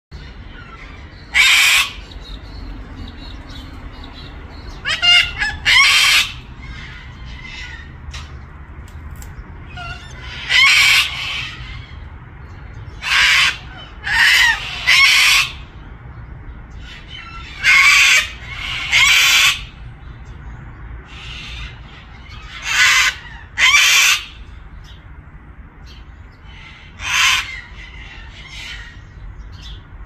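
Sulphur-crested cockatoo squawking: about a dozen loud, harsh screeches, each about half a second long, coming singly or in pairs a few seconds apart.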